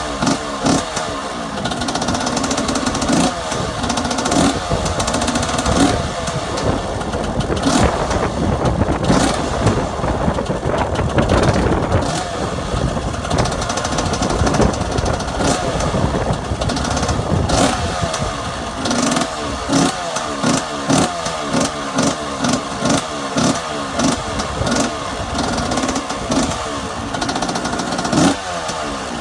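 1996 KTM 125 two-stroke engine through an FMF exhaust, running from a cold start without choke. It is revved up and down, then blipped in short bursts about once a second near the end.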